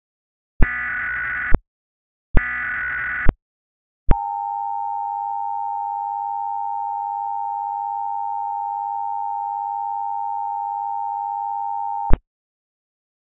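Emergency Alert System tones: two bursts of digital data tones about a second each (the SAME header), then the two-tone EAS attention signal, a steady dual tone held for about eight seconds that starts and stops with a click.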